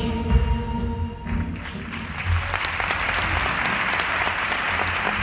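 The last notes of the music die away in the first second or so, then an audience applauds, the clapping building up and holding steady.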